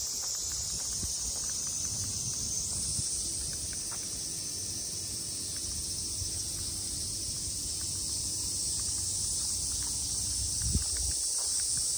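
A steady, high-pitched drone from a chorus of summer insects, over the soft, irregular thuds of footsteps while walking.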